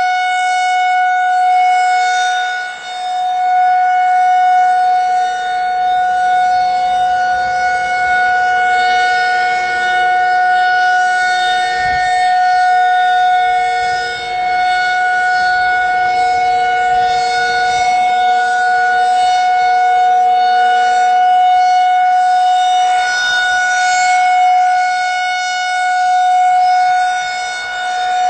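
Federal Signal 2001-SRN electromechanical outdoor warning siren sounding a loud, steady tone at full speed during a siren test. The pitch holds constant while the level dips briefly about every twelve seconds as the rotating horn turns.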